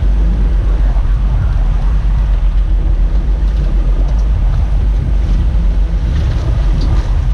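Boat engine running steadily as a low rumble, with wind buffeting the microphone.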